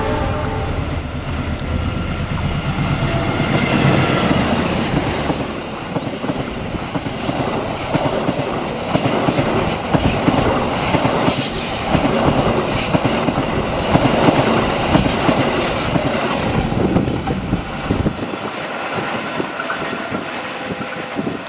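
A train passing close by. Its horn cuts off right at the start, then the locomotive rumbles past. The carriages follow, their wheels clattering in quick succession with a high wheel squeal, and the sound thins and fades over the last few seconds.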